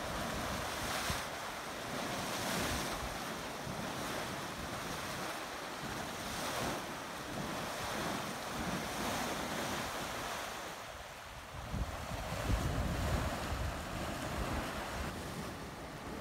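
Hot-spring pool churning and boiling at a surging vent: a steady rushing of water, with wind buffeting the microphone, strongest about twelve seconds in.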